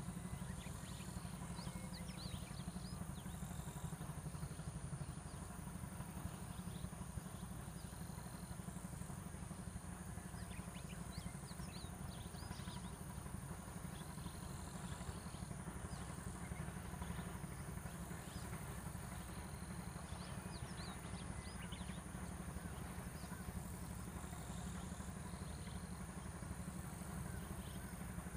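Rural outdoor ambience: a steady low rumble, with short bird chirps coming in a few scattered bursts.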